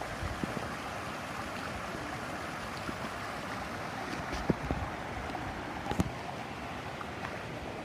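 Steady rush of water pouring into a fishing pond from a small rocky inflow, with a couple of sharp clicks about halfway through.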